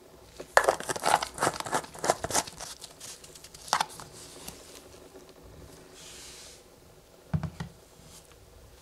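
Plastic screw cap of a 1-litre Wolf motor oil bottle being twisted back on by gloved hands: a rapid run of plastic clicks and rasps for about two seconds, then a single click. Near the end comes a short dull knock with a few clicks, as the bottle is set on a wooden table.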